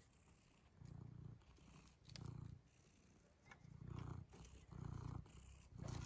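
Domestic cat purring close to the microphone, faint, in low rumbling pulses about once a second.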